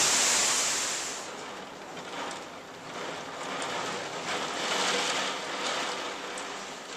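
Heavy rain pouring down in a storm downpour, a steady rushing hiss. It is very loud for about the first second, then drops to a softer rush with light splashes.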